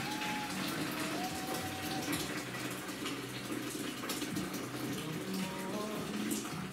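Water poured from a kettle into a plastic mop bucket, a steady gushing splash.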